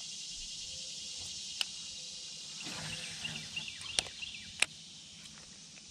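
Steady, high-pitched chorus of insects from the summer woods along the shore, with three sharp clicks, one under two seconds in and two close together around four seconds in.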